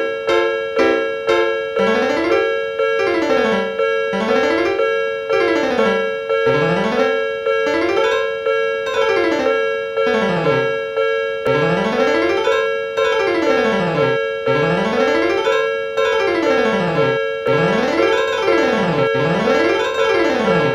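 Railroad crossing warning bell clanging in a steady rhythm, with piano notes running up and down in quick scales in time with it.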